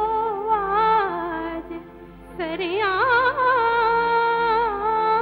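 Indian classical-style music: a single melodic line of held notes with slides and ornaments over a steady drone. It pauses briefly about two seconds in and then resumes.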